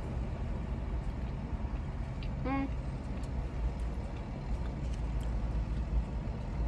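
Vehicle engine idling, a steady low rumble heard from inside a parked car, with one short pitched sound about two and a half seconds in.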